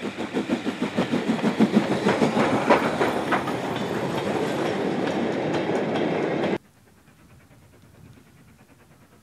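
WD Austerity 2-8-0 steam locomotive passing close by with a goods train, its exhaust beating about four times a second, followed by the rattle and clickety-clack of the goods vans rolling past. The sound cuts off suddenly about two-thirds of the way through, leaving only a faint background.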